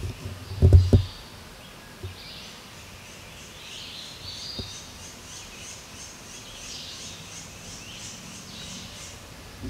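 Woodland ambience: birds calling, with a high chirp repeated two or three times a second through most of it. A couple of low thumps about a second in are the loudest sound.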